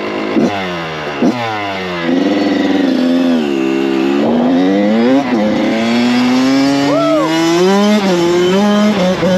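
Kawasaki KX100 dirt bike's two-stroke single engine blipped twice on the throttle, then pulling away under load from about two seconds in. The revs climb and drop back sharply as it shifts up, about five and eight seconds in.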